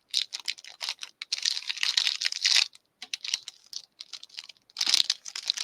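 Plastic packaging crinkling and crackling in short irregular bursts as it is handled, with a brief pause about three seconds in.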